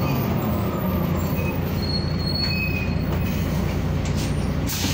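Interior ride noise aboard a 1998 Mercedes-Benz O405N2 city bus under way, its Mercedes-Benz OM447hLA six-cylinder diesel running with a steady low drone. A couple of brief high squeals come about two seconds in.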